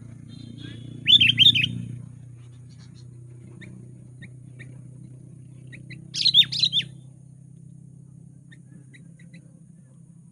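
Sooty-headed bulbul singing two short phrases of several quick rising-and-falling notes, about a second in and again about six seconds in, with faint short chirps in between.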